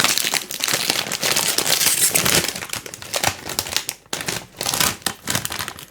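A bag of caramel and salty popcorn being opened and handled, its packaging crackling steadily for about the first half, then in scattered rustles and clicks.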